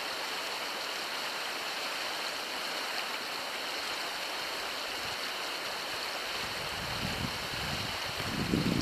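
River rapids rushing: a steady wash of running water. Low, uneven rumbles come in over the last couple of seconds.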